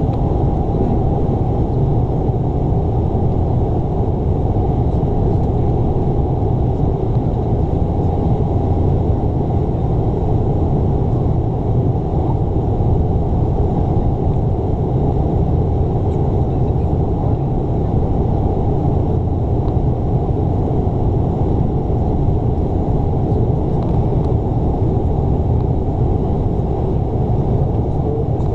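Steady cabin noise inside a Bombardier Dash 8 Q400 twin-turboprop descending on approach with its landing gear down: a constant low rumble of engines, propellers and airflow.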